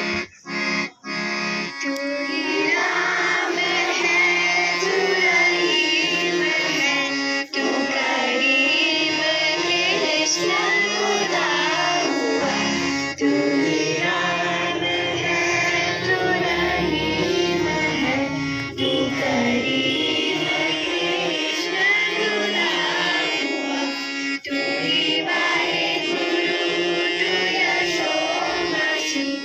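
Harmonium with children singing a song into a microphone. The music breaks off briefly a couple of times in the first two seconds, then runs on continuously.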